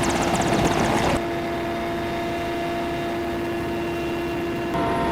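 Engine running steadily, its sound changing abruptly about a second in to a quieter, even drone with steady humming tones, and changing again near the end.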